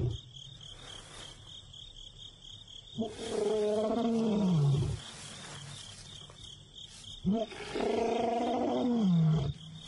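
A young male lion calling twice, each long roaring call sinking in pitch at its end: a contact call for his absent brother that goes unanswered. A steady pulsing chirp of insects runs underneath.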